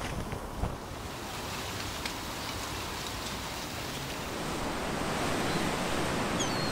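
Wind and breaking sea waves: a steady rush of noise that grows louder over the last couple of seconds.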